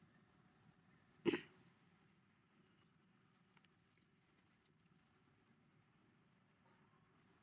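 A single short cough-like sound about a second in, sharp and brief, over a faint background with a few thin high chirps.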